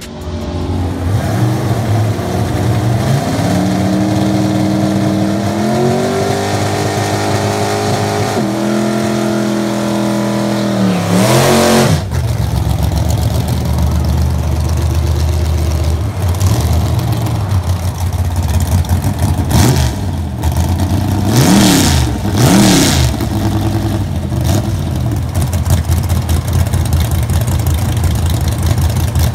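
Drag-racing Chevrolet S-10 pickup engines. For the first ten seconds or so an engine winds up in pitch in steps, dropping briefly between them as it shifts gears on a pass; then a truck engine idles close by with a low steady note, with a few quick throttle blips around twenty seconds in.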